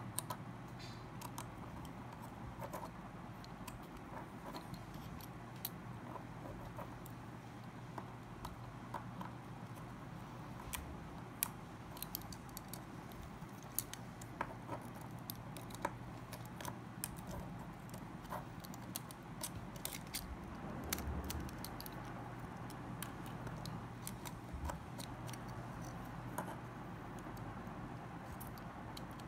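Small irregular clicks, taps and light scrapes of small tools and plastic and metal parts being handled while a Samsung Omnia II smartphone is taken apart, over a steady low hum.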